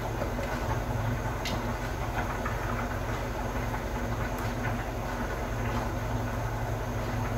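Steady low mechanical hum, even throughout, with a few faint light clicks.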